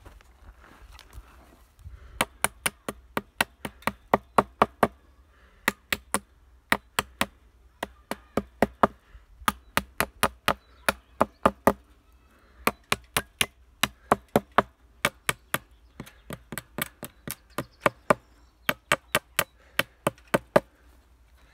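Small hammer tapping chicken-wire netting and its staples against a wooden fence post. The taps are sharp and come in quick runs of about four a second, with short pauses between runs, starting about two seconds in.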